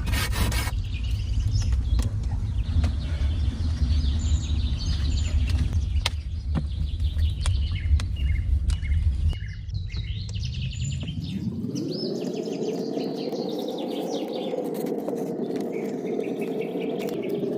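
Small birds chirping and calling repeatedly. Under them is a low rumble with scattered clicks, which gives way about two-thirds in to a steady rushing noise.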